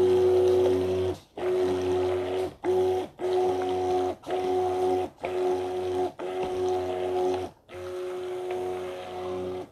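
Hand-held stick blender motor whining in short pulses of about a second each, switched on and off some eight times. It is emulsifying lye-and-goat's-milk solution into the oils for soap batter that is already turning thick.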